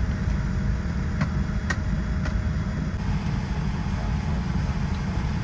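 Steady low rumble of an airliner cabin, with a few faint clicks about a second and two seconds in.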